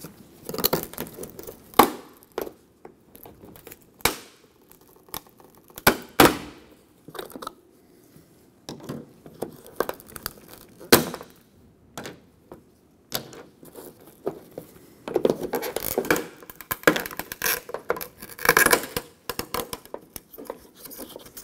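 Plastic trim tool prying and scraping under a truck's roof marker light that is stuck fast on its gasket adhesive: irregular clicks and knocks of plastic on plastic and metal, with a longer stretch of scraping about two-thirds of the way in.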